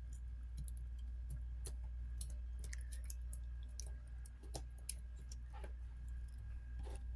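Faint, scattered small clicks and taps of small parts and tools being handled while reassembling a Samsung Galaxy S21 Ultra, over a steady low hum.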